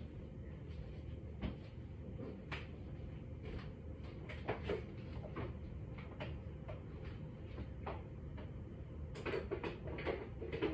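Small bottles and jars knocking and clinking as someone rummages in an open refrigerator: a string of irregular light clicks and taps that comes thicker near the end, over a steady low hum.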